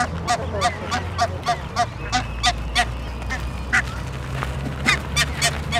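Barnacle geese calling in a flock: short, yapping honks, about three or four a second, overlapping from several birds. They thin out in the middle and bunch again near the end, as the birds squabble and flap their wings.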